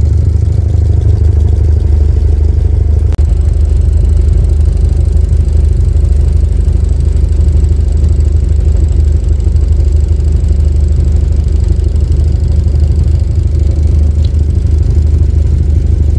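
Canal boat's engine running steadily under way, a constant low hum, with a single short click about three seconds in.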